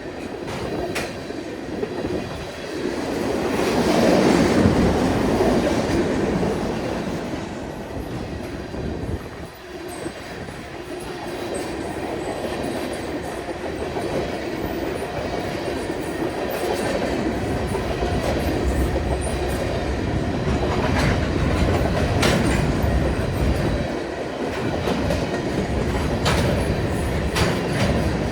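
Freight train cars rolling past, their steel wheels clicking and clattering over the rail joints in a steady rumble that swells loudest about four seconds in.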